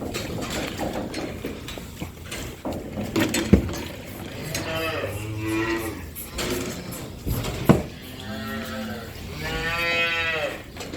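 Calves bawling for their late feed: several calls about halfway through and again near the end, the last one long and arching up and down in pitch. Two sharp knocks sound in between.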